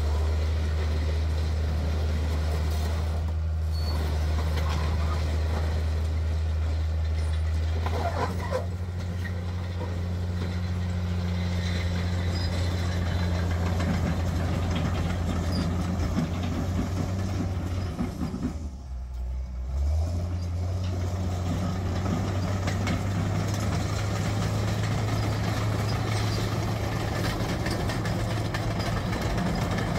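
John Deere 750J LT crawler dozer's 6.6-litre six-cylinder turbo diesel running while the machine travels, with the rattle of its steel tracks over gravel. The engine note steps up about eight seconds in, sags briefly near the middle, then holds steady again.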